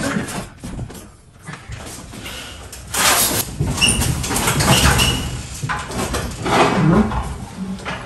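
Knocks and a loud scraping, rubbing noise as an old built-in refrigerator is worked loose and pulled out, with a few short squeaks. It grows loud about three seconds in.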